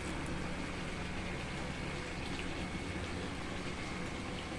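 Cooking pot simmering on the stove, a steady bubbling with a fine crackle.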